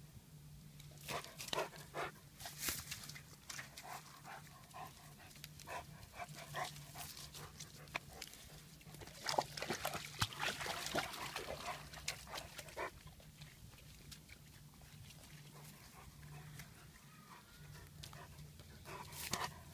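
High-content white wolfdog making animal sounds close to the microphone: irregular bursts of short rustles and clicks, busiest about ten seconds in, over a faint low steady hum.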